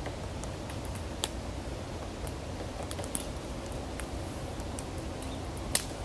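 Scattered short, sharp ticks and taps at an irregular pace, the loudest near the end, over steady low background noise.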